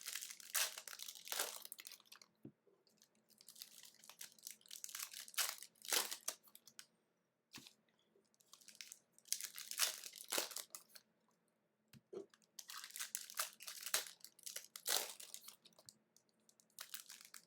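Trading card pack wrappers being torn open and crinkled by hand, in repeated bursts of crackling rustle with short pauses between.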